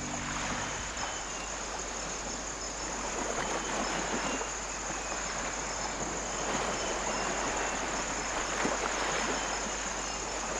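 Evening nature ambience: a steady high-pitched insect trill over a constant rushing hiss.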